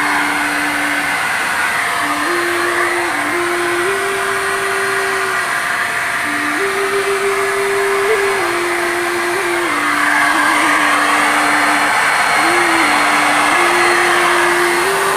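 TOTAL handheld electric spray gun running steadily while spraying paint: a steady whirring hiss that grows a little louder about ten seconds in.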